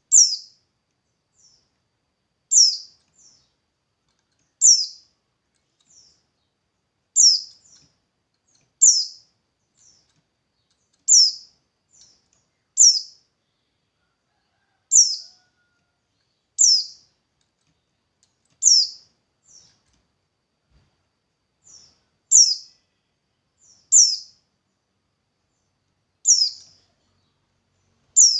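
A bird repeating a short, high, downward-sweeping call every two seconds or so, each call followed by a faint shorter note, with almost no background sound.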